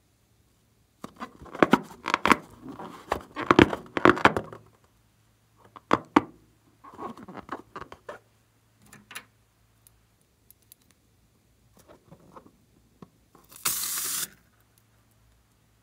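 Fingers rubbing and squeezing a slime-filled rubber balloon, making irregular squeaky, crinkly rubbing sounds, densest over the first few seconds. Near the end there is a brief hiss.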